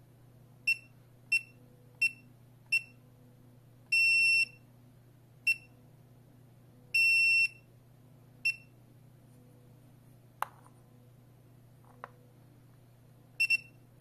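Wireless touch keypad beeping on one high tone as its keys are pressed: four short beeps about two-thirds of a second apart, a longer half-second beep, a short one, another long beep and a short one. Later comes a sharp click, a fainter click, and a quick double beep near the end.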